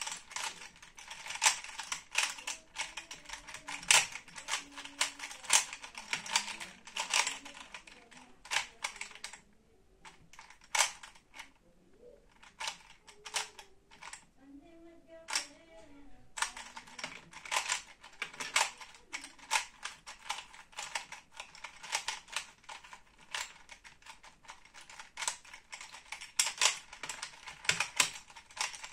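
Plastic 3x3 puzzle cube being turned quickly by hand: dense, rapid clicking of the layers snapping round. The clicking thins to a few scattered clicks for several seconds around the middle, then picks up again.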